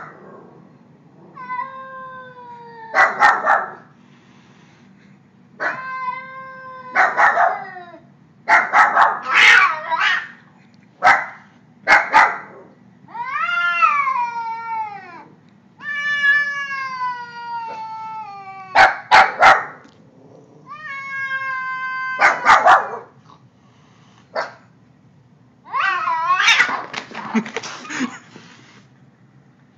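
A domestic cat giving a series of long, drawn-out growling yowls that rise and fall in pitch, broken by short sharp hisses. It is the sound of a frightened cat warning off a threat, with a louder noisy outburst near the end as the confrontation turns into a scuffle.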